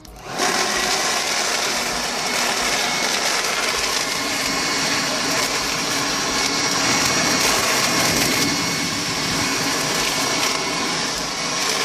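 Portland 3-in-1 electric blower vacuum mulcher switching on and running steadily with a high whine, sucking in styrofoam chunks and shredding them through its impeller without jamming.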